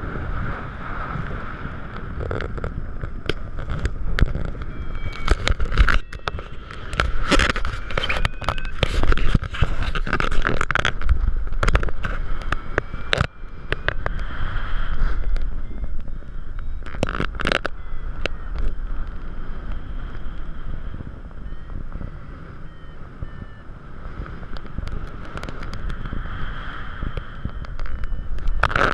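Wind rushing and buffeting over the camera microphone in paraglider flight, with repeated scraping knocks from the mount and harness. Behind it, a paragliding variometer beeps faintly in short tones that step up and down in pitch.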